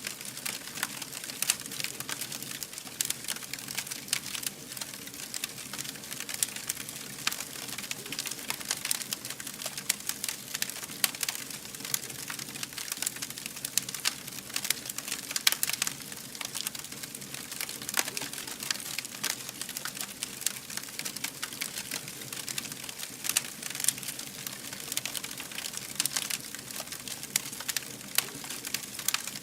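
Campfire burning with dense, irregular crackling and popping over a steady hiss and low rumble of flames.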